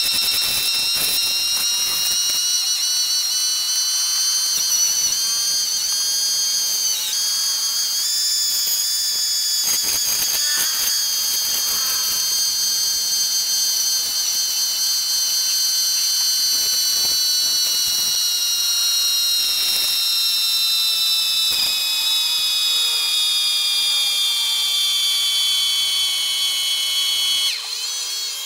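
Wood lathe running with a high-pitched whine that slowly falls in pitch, while a cutting tool scrapes the spinning wood in short bursts.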